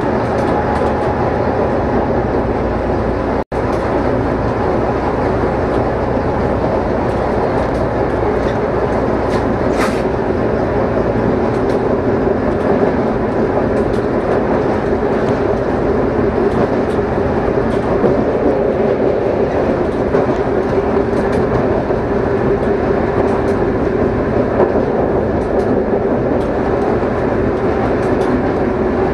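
Class 742 diesel-electric locomotive under way, heard from inside its cab: a steady engine drone mixed with running noise from the wheels, with faint clicks as they pass over rail joints. The sound cuts out for an instant a few seconds in.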